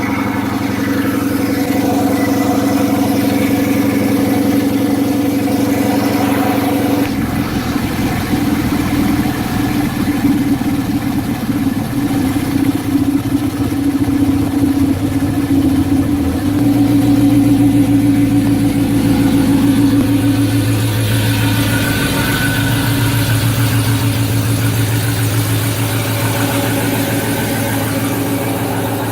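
Dodge Challenger's 5.7-litre Hemi V8 running loud at a steady speed through JBA long-tube headers and mid pipes. The exhaust note changes abruptly about seven seconds in and grows deeper and louder from about sixteen seconds in.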